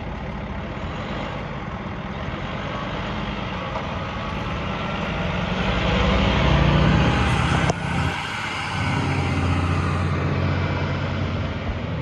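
Fire ladder truck's engine running under load and building steadily. About three quarters of the way through it drops off suddenly with a click, then pulls again steadily.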